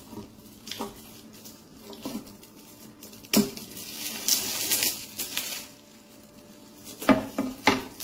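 Metallic foil gift wrap crinkling and tearing as it is pulled off a framed picture, with a few sharp crackles and a longer rustling rip about four and a half seconds in.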